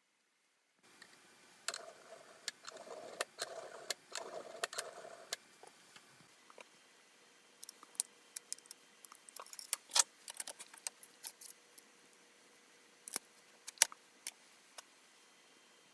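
Small metal parts clinking and clicking as they are handled, in irregular clusters of sharp clicks with a short scraping, rattling stretch a couple of seconds in.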